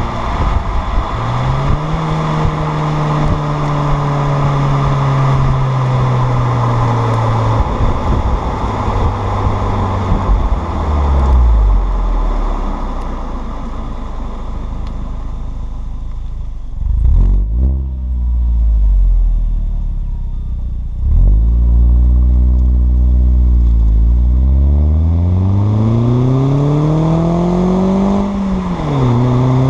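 Audi A4 B6's turbocharged engine through a Borla catback exhaust, driving with the revs rising and falling through gear changes. The pitch climbs steadily over the last several seconds, drops sharply near the end at a shift, then climbs again.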